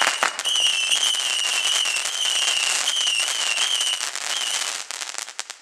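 Box of firework missiles going off: a wavering, high-pitched whistle over dense crackling and sharp pops. The whistle breaks briefly a couple of times and stops about four and a half seconds in, and the crackling dies away near the end.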